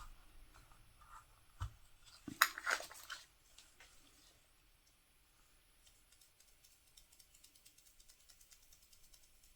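Small container of glitter being handled at the work table: a low knock about one and a half seconds in, a short rattling rustle around two and a half seconds, then faint quick ticking in the second half.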